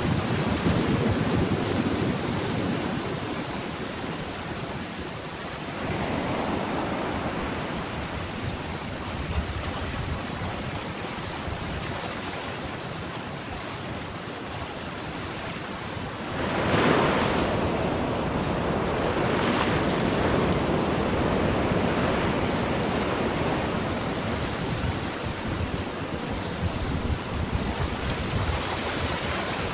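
Atlantic swell surging and breaking against sea cliffs in a steady wash of surf that rises and falls, with one heavier crash a little past halfway.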